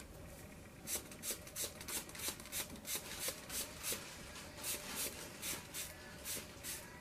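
Fine-mist pump spray bottle spritzed at the face over and over, short hissing sprays about three a second, starting about a second in.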